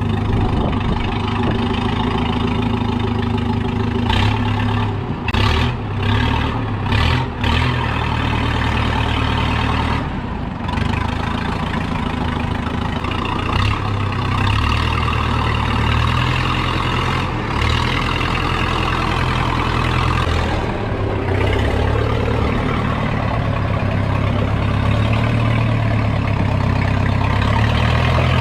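Engine of an old Case 580 Construction King backhoe running, its note dipping and swelling several times as the throttle and load change, with a few brief breaks in the sound about four to eight seconds in.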